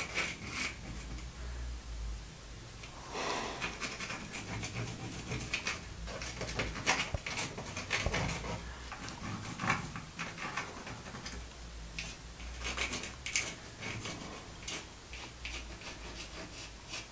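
Pencil scratching on a wall in short, irregular strokes as a mural outline is sketched by hand.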